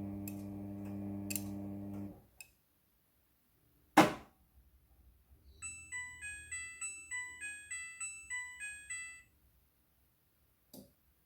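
Midea front-loading washing machine at the end of its cycle: a steady motor hum stops about two seconds in, followed by a click and a loud clunk. The machine then plays its electronic end-of-cycle tune, a quick run of beeping notes lasting about three and a half seconds, with a faint click near the end.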